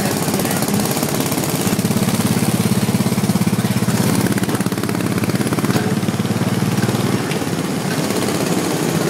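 Small petrol engine of a theme-park speedway ride car chugging with a fast, even pulse. It runs louder from about two seconds in while the accelerator is held down, then eases off near the end as the car slows.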